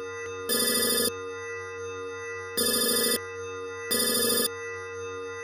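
Three short, rapidly fluttering electronic trills, each about half a second long, over a steady electronic drone. This is a computer-terminal style sound effect laid over a music bed.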